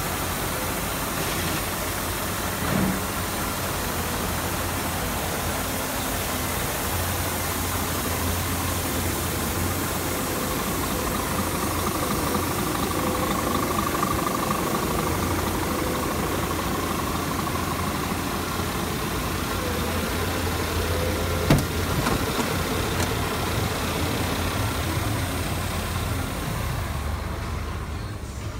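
Scania R440's inline six-cylinder diesel engine idling steadily. There is a single sharp click about three-quarters of the way through. Near the end the sound turns duller.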